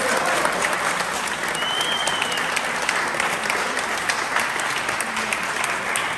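Spectators applauding and clapping steadily as the winner's hand is raised. A brief high whistle comes about two seconds in.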